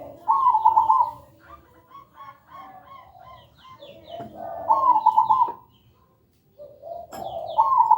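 Zebra dove (perkutut) singing: three phrases, each a lower coo running into a quick series of higher, rolling coos, about every three to four seconds. Fainter chirps of other small birds sound in between.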